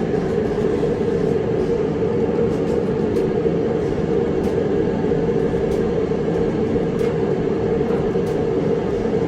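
A steady machine drone, loud and unchanging in pitch, with a few faint light clicks on top.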